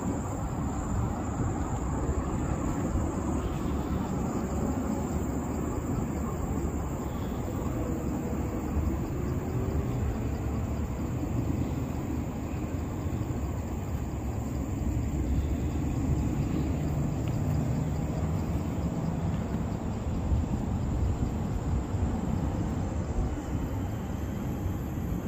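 Steady open-air ambience: an even, low rumble with a thin, high, steady tone running above it.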